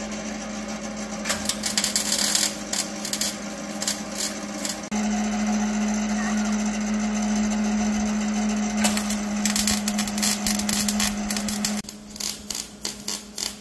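Wire-feed (MIG) welder laying short welds: several bursts of crackling, each a second or two long, over a steady electrical hum.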